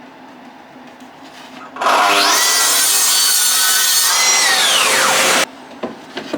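Track saw spinning up and cutting through 3/4 inch plywood for about three and a half seconds, its motor whine climbing as it starts and dropping away as it stops, then cutting off suddenly; a few light knocks follow near the end.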